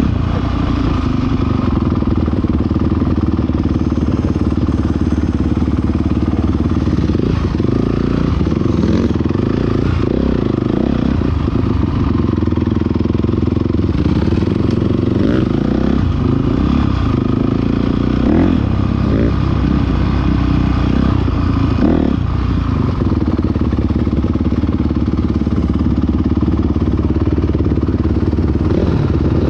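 Honda dirt bike's engine running under the rider, heard up close, its revs rising and falling repeatedly through the middle as it picks its way along a rough trail, with some clatter.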